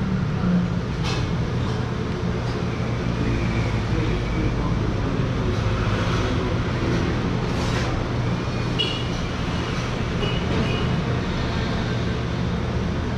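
Steady background din with a constant low hum, broken by a few brief faint clicks.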